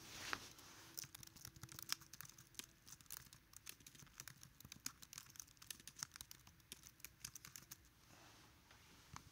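Faint typing on a computer keyboard: a quick, irregular run of key clicks after a brief rustle, stopping about eight seconds in, with one more click near the end.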